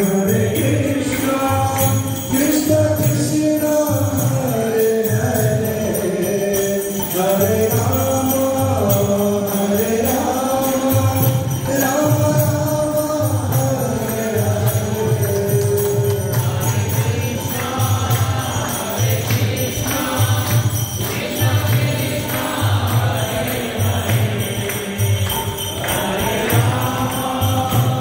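A crowd of devotees singing a devotional kirtan chant together, a gliding melody over a steady beat, with hand clapping and jingling cymbals.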